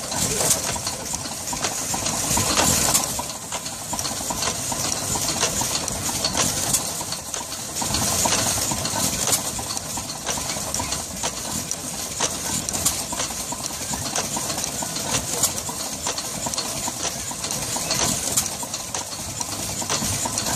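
Marvel draw cut power hacksaw sawing through a thick-walled steel pipe, its blade rasping back and forth in the cut, with a repeated clicking that the owner suspects comes from the saw being driven the wrong way round. The hit-or-miss engine that drives it runs underneath.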